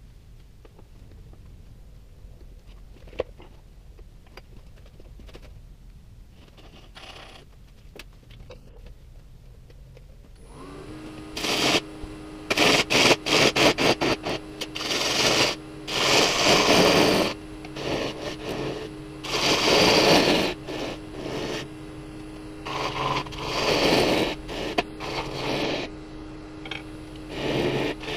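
A quiet shop with a few small clicks for about ten seconds, then a wood lathe starts with a steady hum and high whine. A turning tool then cuts the spinning pin oak bowl's foot in a series of loud cuts lasting a second or two each.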